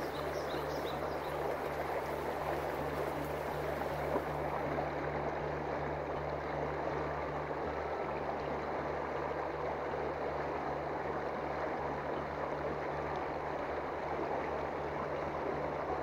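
Steady rushing of a shallow, fast-flowing river running over rocky riffles, with a low steady hum beneath it.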